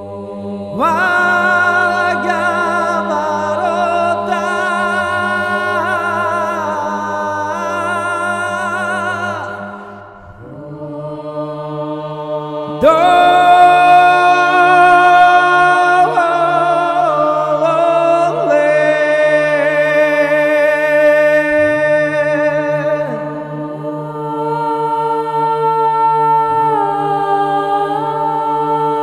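An a cappella choir chants over a held low drone, in the manner of Orthodox church chant. The voices move in long phrases, with a short break about ten seconds in.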